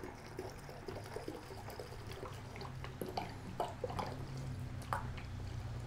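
Enzyme cleaner being poured from a plastic gallon jug into the tank of a pump garden sprayer, with scattered small clicks and splashes through the pour.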